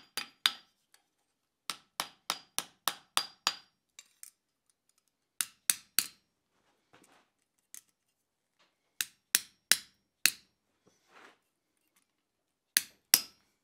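Blacksmith's hand hammer striking steel on an anvil in bursts: a quick run of about seven blows at roughly four a second, then groups of two to four. The early blows carry a ringing metallic tone.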